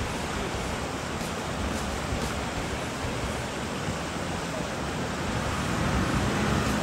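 Fast-flowing muddy river rushing around rocks and a stuck Jeep: a steady rush of water. A vehicle engine runs low underneath, and the sound grows a little louder near the end.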